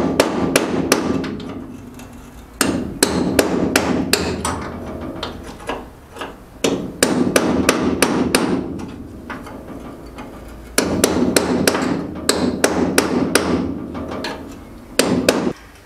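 Hammer driving a cold chisel through the rusted sheet-steel floor of a 1975 Daihatsu F10: sharp metallic blows, about four a second, in five runs with short pauses between.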